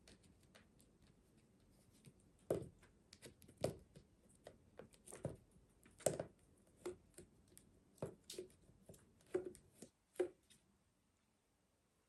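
A cat playing with a small object: a dozen or so irregular light taps and knocks, stopping shortly before the end.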